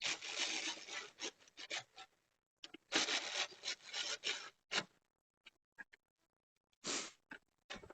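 Ratchet wrench clicking in two runs of about two seconds each, then a few single clicks and a short burst near the end, as the hood latch bolts are tightened.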